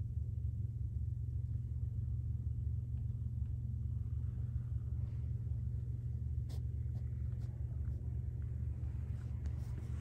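Steady low background rumble, with a few faint clicks.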